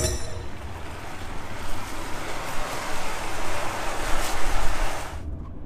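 Steady rushing noise of wind buffeting the microphone over tyre hiss on a wet road, with a low rumble underneath; it cuts off suddenly about five seconds in.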